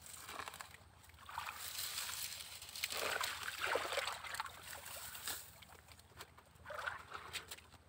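Shallow stream water sloshing and splashing in irregular surges as a person wades and pulls clumps of grass and soil from the bank into the water. A few sharp clicks near the end.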